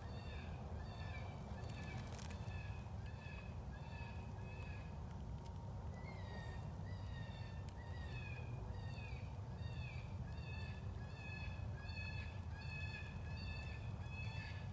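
Fox Pro electronic predator call playing a rabbit distress sound: a long string of high, wavering squealing cries, about two a second, some falling in pitch. A steady low rumble runs underneath.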